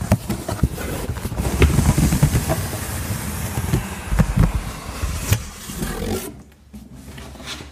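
Cardboard scraping and rustling as a large outer shipping carton is slid up and off an inner cardboard box, with a few sharp knocks. It goes quieter about six seconds in.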